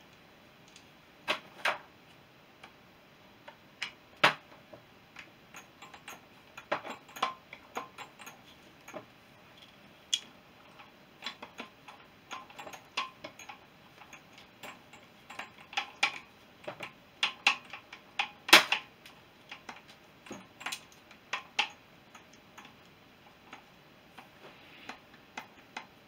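Hand tools and small metal parts clicking and tapping against an aluminium Honda CB350 crankcase as a tab washer and bolt are fitted on the selector drum. The clicks are irregular, with a few sharper, louder ones.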